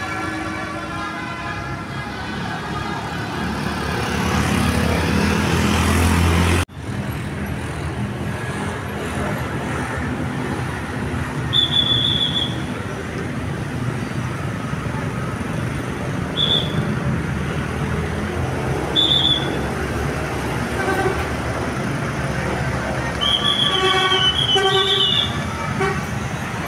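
A bus's Basuri telolet horn playing its multi-note tune, growing louder over about six seconds and then cut off abruptly. After the cut come bus engine and street noise with a few short high toots, and another burst of horn notes near the end.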